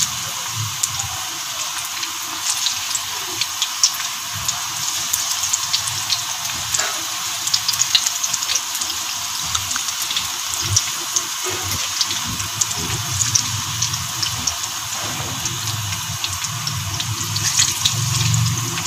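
Chicken pakoras in gram-flour batter deep-frying in hot oil in a wok: a steady sizzling hiss with frequent small pops and crackles.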